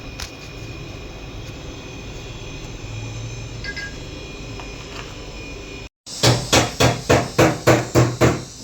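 Tata Tigor petrol engine running with a steady hum and a faint high whine, the noise its owner counts as a problem. After a brief cut, a run of about nine loud, evenly spaced knocks comes, roughly four a second.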